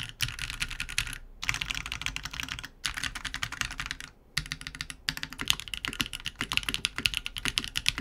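Fast typing on a Keebfront Vanguard 65 mechanical keyboard built with a brass plate and Keebfront Doom long-pole switches: a dense run of key clacks, broken by three brief pauses. Of the kit's plate options this one gives the most hollow sound.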